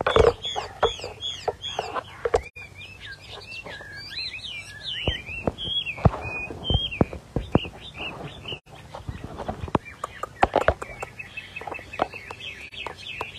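Chinese hwamei (họa mi) singing: a long, varied run of clear whistled notes that glide up and down, opening with a quick series of repeated arching notes. Scattered sharp clicks and knocks sound over the song.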